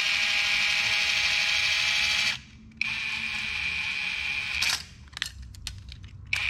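Cordless drill driver with a deep socket spinning a nylock nut up a stainless steel screw: a steady whine for about two seconds, a short pause, then a second run of about two seconds. A few light clicks follow near the end.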